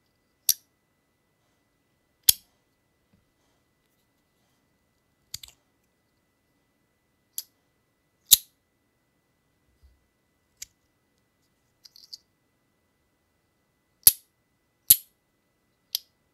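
Compoform V3 slider fidget's metal plates snapping across one another, making about ten sharp clicks at uneven intervals, some loud and a few faint.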